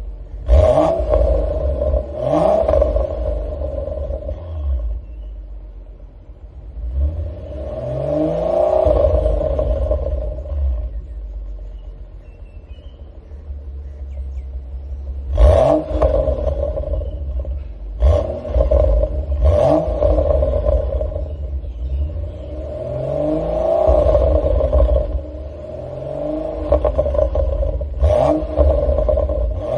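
BMW 535i's N55 turbocharged straight-six through an Eisenmann muffler, revving up and falling back over and over under a steady deep rumble. Sharp pops and crackles break out as the revs drop, from a tune with the burble and crackle map turned up.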